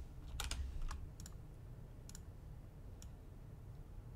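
Computer keyboard typing: a quick run of keystrokes about half a second in, then a few single clicks about a second apart, over a low steady hum.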